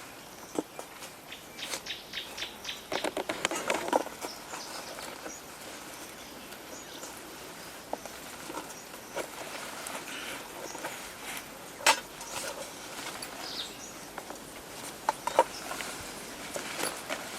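Irregular clicks, snaps and rustles, a cluster about three to four seconds in and sharp single snaps around twelve and fifteen seconds, over a steady forest background with a few faint bird chirps.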